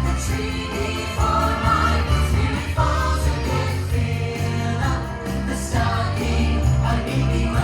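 Christmas parade music from the park's loudspeakers: a choir singing over a steady bass line, with jingle bells.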